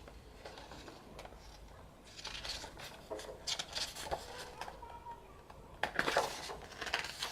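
Paper and card being handled: pages of a thick K-pop album photo book and its inserts being turned and shifted, in scattered short rustles, the loudest about six seconds in.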